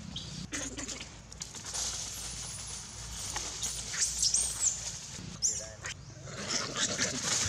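Macaques giving short, high-pitched squeaks, several in quick succession about four seconds in, over a low rumble.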